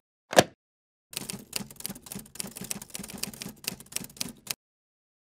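Typewriter keys clacking: one sharp key strike, then a rapid run of keystrokes for about three and a half seconds that stops abruptly.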